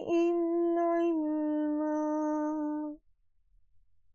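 A woman reciting the Quran in chanted tajweed style, drawing out the closing word "'ilma" in one long held note. The note stops about three seconds in.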